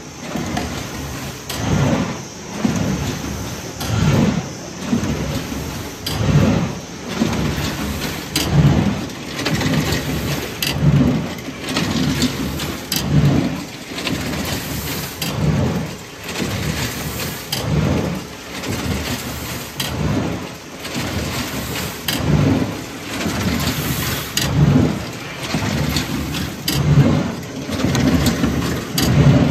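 Heidelberg SBD cylinder die cutter running: a heavy mechanical rumble with clicks that swells once per machine cycle, about every two seconds.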